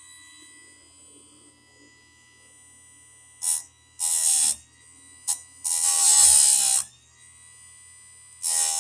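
Electric chainsaw chain grinder's motor running with a steady whine, its grinding disc biting into the chain's cutter teeth in loud bursts: two brief touches and three longer grinds of up to about a second each.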